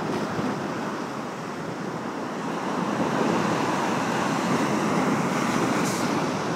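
Surf breaking and washing over shoreline rocks in a rough sea: a steady rushing that swells slightly midway.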